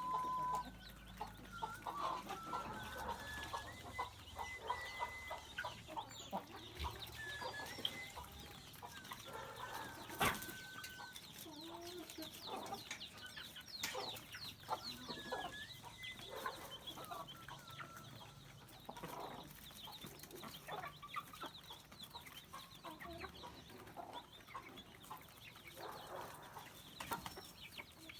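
A flock of free-range chickens clucking, with many short calls overlapping. A single sharp knock cuts through about ten seconds in.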